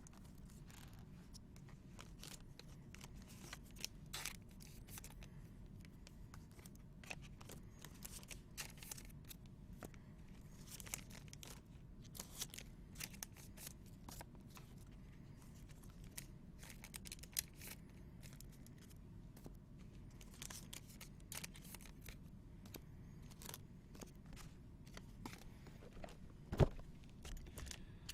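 Faint tearing, crinkling and clicking as trading-card packs and boxes are opened and the cards handled, in scattered short rustles over a low steady hum.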